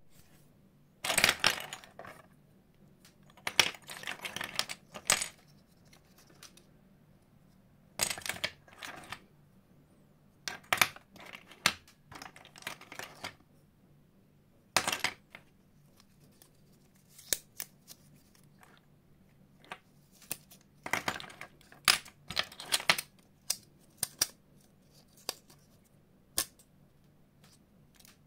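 35mm film cassettes and plastic film canisters being picked up, turned in the fingers and set down among others on a wooden tabletop: light metal and plastic clicks, clacks and rattles in short bursts, with brief pauses between.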